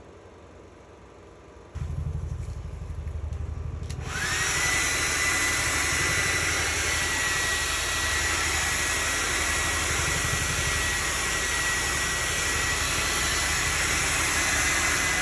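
An electric blower motor switches on: a low hum starts about two seconds in, then about four seconds in it spins up with a quickly rising whine that levels off into a steady high whine over a loud rush of air.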